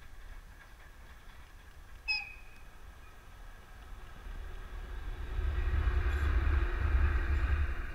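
VL10 two-section electric locomotive approaching and passing close by: a rumble of wheels and running gear with a steady hum over it, swelling from about four seconds in and loudest in the last three seconds. A brief high chirp sounds about two seconds in.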